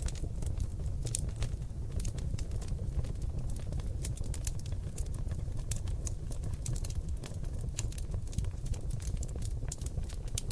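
Seasoned oak logs burning in a fireplace, crackling and popping with many irregular sharp snaps over a steady low rumble of the flames.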